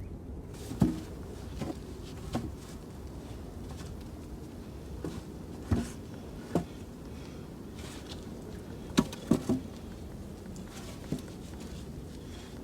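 Irregular light knocks and clicks, about ten of them, over a steady low background noise, with three close together about two-thirds of the way in.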